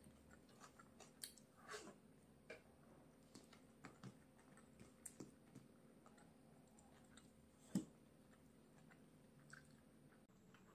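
Faint close-miked chewing with soft, irregular mouth clicks and smacks, one louder smack about eight seconds in.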